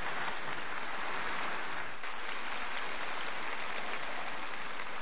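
A steady, even hiss of noise, unchanging throughout.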